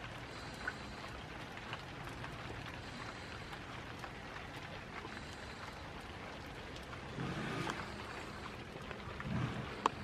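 Steady rain falling, with scattered drip ticks, a brief low sound about seven seconds in, and a sharp tap just before the end.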